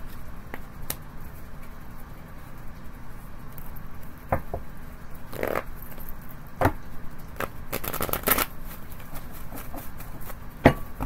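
Tarot cards being handled and shuffled: scattered sharp snaps and slaps of card stock, a quick dense run of them about eight seconds in, and the loudest snap near the end.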